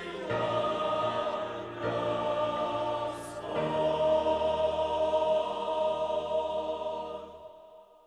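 Mixed church choir singing a Russian hymn, ending on a long held chord that fades away about seven seconds in.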